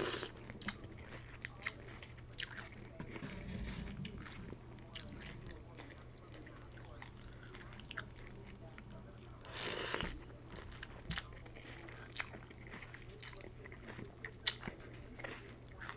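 Close-up chewing and biting of instant pho noodles with shrimp and crunchy bean sprouts: wet mouth clicks and crunches, with one louder, longer mouth sound about ten seconds in. A low steady hum sits underneath.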